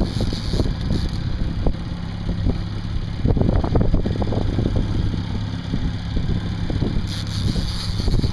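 Boat motor running steadily at trolling speed, a low even hum, with wind buffeting the microphone.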